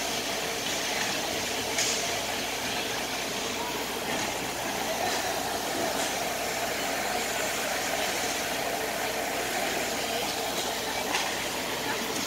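Ice hockey rink ambience: a steady noisy din of skates scraping the ice and arena hum, with a couple of sharp clacks, about two seconds in and near the end.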